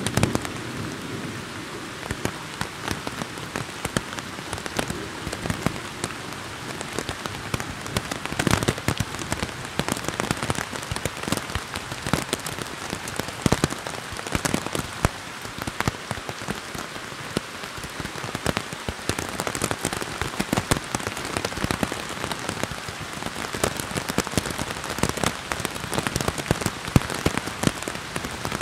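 Steady rain falling through forest foliage onto rocks: a constant hiss packed with a dense patter of individual drops.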